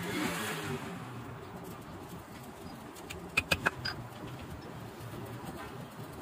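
Hand leatherwork on a chappal sole: a short rub of leather and tool at the start, then three quick sharp taps with a slight ring about three and a half seconds in. Pigeons coo in the background.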